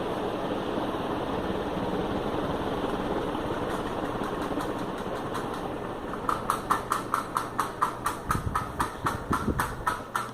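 Loren Sid M1 commercial ceiling fan running with a steady whoosh and motor hum. About six seconds in the whoosh fades and a regular clicking starts, about five clicks a second.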